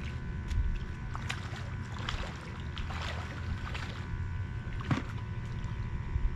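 Water splashing and sloshing in irregular strokes as a person wades in, over a low rumble.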